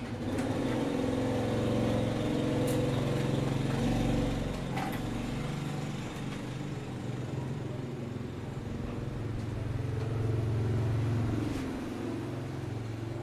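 Homemade car subwoofer, a woofer in a wooden box driven by a 12 V amplifier board, playing music on test: sustained, shifting deep bass notes with little above the low range, swelling louder twice.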